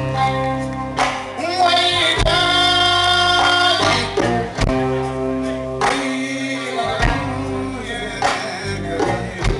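Live Malian guitar band playing: electric guitar, electric bass and drum kit, with a man's voice singing long held notes over a steady beat.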